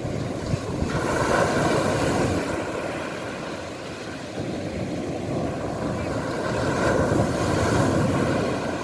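Black Sea waves washing in on a beach, the surf swelling twice, about six seconds apart.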